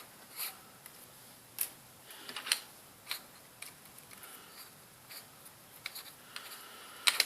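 Scattered light clicks and taps of small parts being handled while the bit is changed in a cordless drill, the sharpest clicks near the end.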